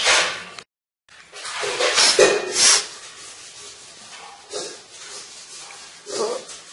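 Rubbing and scraping: a rolling pin working chapati dough on a stone slab, cut off abruptly within the first second. After a brief dropout, more rubbing and handling swishes follow, the loudest about two seconds in.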